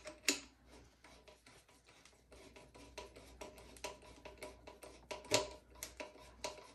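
Phillips screwdriver turning and tightening screws into a bidet seat's plastic mounting plate: quiet, irregular clicks and scratches, with two sharper clicks about a third of a second in and about five seconds in.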